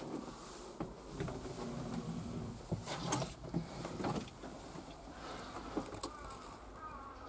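Scattered clicks, knocks and rustling of handling inside a wheeled excavator's cab, busiest about three seconds in. A few short chirps near the end.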